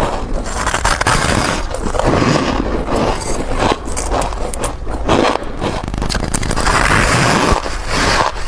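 Close-miked crunching of soft white ice being bitten and chewed, a dense, continuous crackly crunch with sharp snaps.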